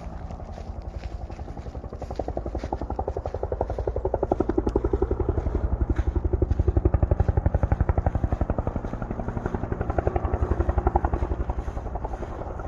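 Firefighting helicopter passing overhead, its rotor blades making a fast, even thudding. It grows louder a couple of seconds in, is loudest midway, then eases and swells again near the end.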